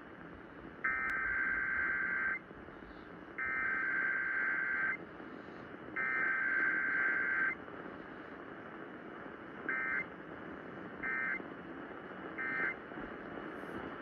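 Emergency Alert System digital data bursts from an AM radio's small speaker: three long buzzing bursts of the SAME header, then three short bursts about a second and a half apart that mark the end of the message, with faint AM static hiss between them.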